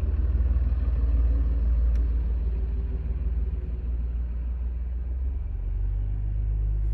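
Car engine idling, a steady low rumble heard from inside the cabin, its pitch shifting slightly about five seconds in.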